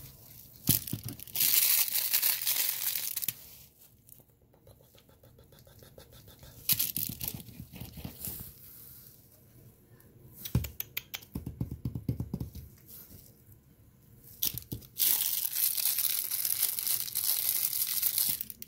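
Rustling and crinkling noise as a hand and a puppy move against the nylon floor and mesh of a soft-sided playpen. It comes in stretches: one early on, a short one midway, and the longest and loudest over the last few seconds, with a couple of sharp knocks in between.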